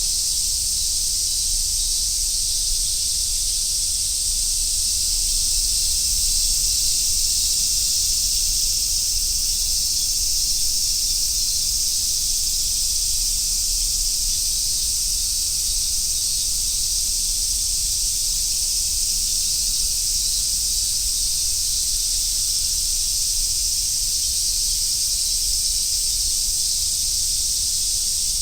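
Cicadas singing in a dense, steady chorus, a continuous high-pitched buzz with no breaks, over a faint low rumble.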